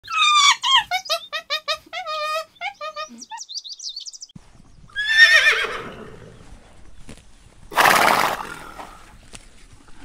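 Horse whinnying: a long neigh that starts high and falls in quick pulses over about three seconds, then a second, shorter neigh about five seconds in, and a short snort near eight seconds.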